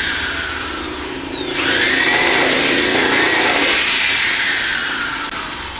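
Handheld electric power tool in woodworking: its motor winds down after release, is triggered again about 1.5 s in and runs at full speed, then slowly winds down again near the end.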